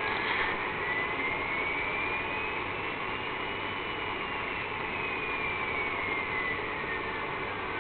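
Radio scanner on 126.000 MHz AM giving steady static hiss, with a thin whistle-like tone sweeping slowly in pitch like a slow police siren. The tone rises for about the first four seconds, then falls back down. It is an unidentified received signal.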